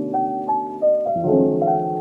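Background music: a gentle piano melody over sustained chords, the notes changing about every half second.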